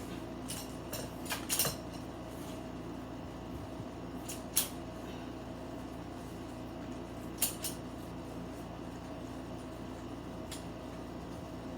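Scattered clicks and clacks of a portable folding clothesline's arms and joints being handled and pulled out, the sharpest a little over a second and a half in, near five seconds and near seven and a half seconds, over a steady hum in the room.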